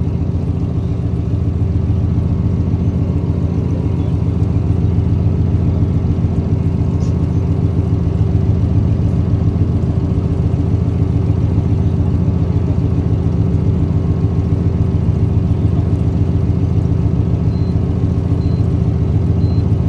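Fishing boat's engine running steadily: a low, even drone with a fast regular pulse.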